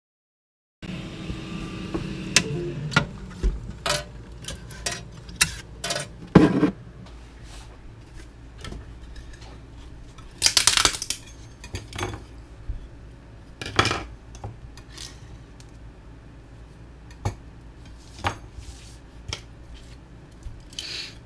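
Small hard objects being handled and set down: an irregular string of sharp clicks and clinks, with a longer clattering rattle about ten seconds in.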